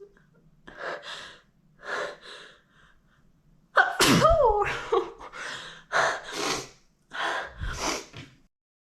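A woman's sneeze build-up: short, shaky gasping inhalations as she tries to hold it back, then a sudden loud sneeze with a voiced cry about four seconds in. Several more short breathy bursts follow before it goes quiet near the end.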